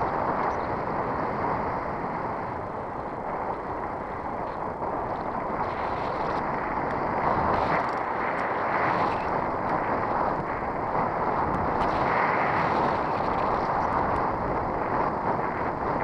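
Steady rushing wind noise over the microphone with tyre-on-asphalt noise from a bicycle riding along a paved road, swelling and easing slightly.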